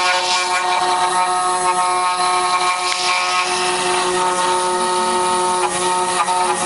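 CNC router spindle running with a steady whine of several even tones, its end mill cutting into a wooden block with a continuous rasping hiss.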